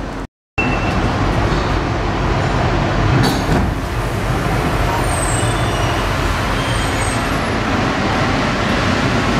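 Cabin noise inside a CAF NS-07 rubber-tyred metro car standing at a platform. The doors shut with a thump about three seconds in, and the train then starts to pull away.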